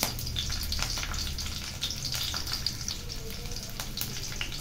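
Garlic cloves and green chilli sizzling in hot mustard oil in a kadhai, a steady hiss with many small irregular pops and crackles.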